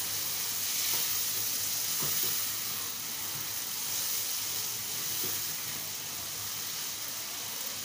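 Black chickpeas frying in oil and spice masala in a pan on a gas burner, with a steady sizzle while a spatula stirs them, with a few faint scrapes.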